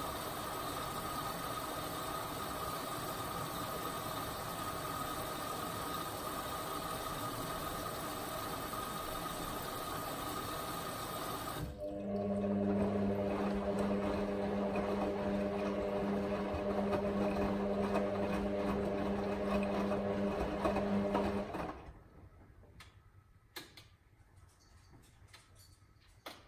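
Hotpoint WM63P front-loading washing machine mid-cycle with a load of towels. For about twelve seconds it gives a steady whirring with a faint whine, then changes abruptly to a steady low hum while the drum turns. About 22 seconds in the hum stops and the machine goes almost quiet, with a couple of clicks.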